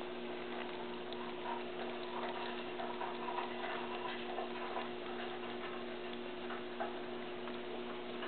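Baby squirrels gnawing on nut shells: faint, scattered small clicks over a steady low hum.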